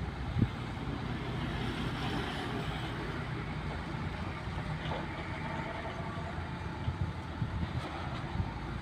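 Crane truck's diesel engine running steadily while the truck-mounted knuckle-boom crane lifts a precast concrete U-ditch section, with a few short low thumps, the sharpest about half a second in.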